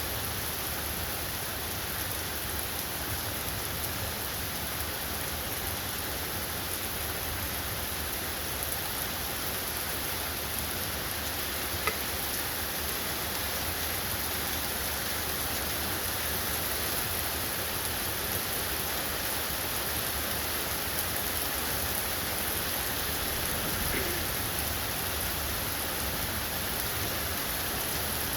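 Steady rain from a rainstorm, falling in an even hiss, with one sharp drip or tick about twelve seconds in.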